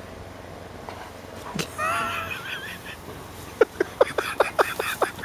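A person laughing: a high, wavering vocal sound about two seconds in, then a quick run of short breathy laugh pulses, about six a second, near the end.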